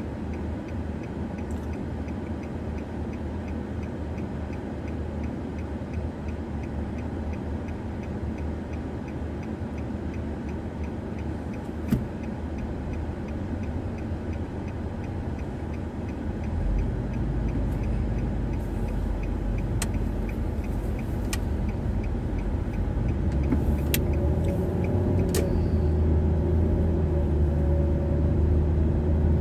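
Car engine and road rumble with a steady, even ticking like a turn-signal relay, and one sharp click near the middle. About halfway through, the rumble grows louder and stays up as the car gathers speed.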